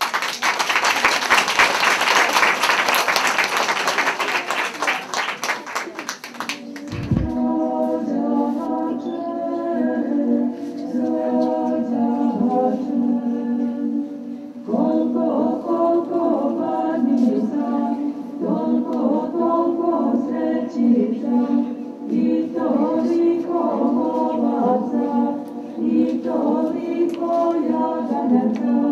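Audience applause for about six seconds, then a group of children in folk costume singing a Christmas song together, unaccompanied.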